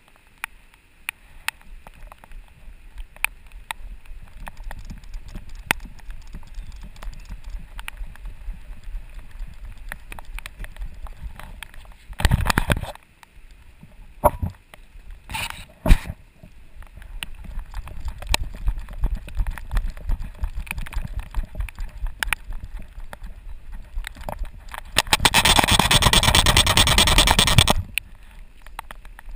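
A dog's paws striking wet pavement in a running clip-clop rhythm, heard from a harness camera on the dog's back, with many sharp ticks over a low rumble. There are short noisy bursts around the middle and a loud rushing noise for about three seconds near the end.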